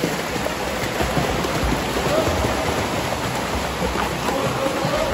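Several children kicking their legs in pool water while holding the edge: a steady, continuous splashing and churning of water.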